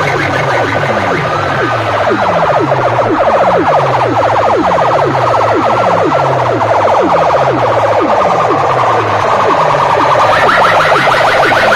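Siren-like electronic sound blasted at high volume through a stack of horn loudspeakers. It is a falling low tone repeating a little more than once a second under a fast, buzzing pulse, and the upper part steps higher near the end.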